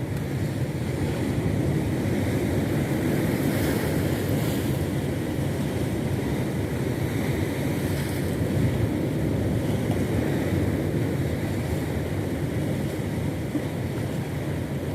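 Steady wind noise on the microphone over a low rushing wash of sea water, unbroken throughout.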